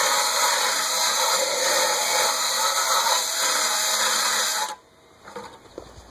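Cordless drill spinning a wire wheel against an aluminum snow shovel blade, scrubbing the metal clean before brazing; a steady harsh grinding that cuts off suddenly about three-quarters of the way through.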